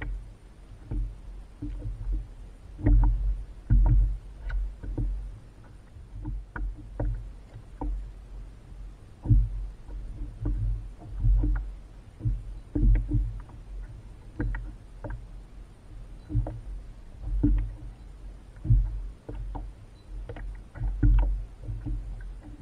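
Water slapping and knocking against a kayak's hull at sea, in irregular low thumps about every second or so, with small clicks and knocks from gear on the boat.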